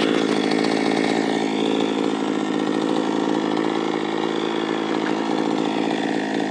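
Two-stroke chainsaw running steadily at an even speed.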